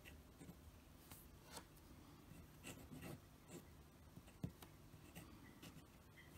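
Faint writing sound of a Parker Premier fountain pen's nib moving over paper in short, irregular strokes as a cursive signature is written. One small sharp tick stands out about four and a half seconds in.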